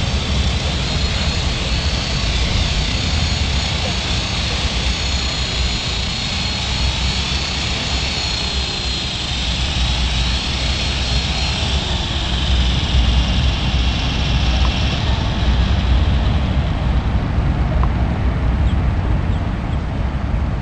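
Electric RC micro helicopter with a metal rotor head, its motor and rotor whining at a steady pitch, then winding down in pitch from about twelve seconds in and fading out a few seconds later as it spools down after landing. A steady low rumble runs underneath.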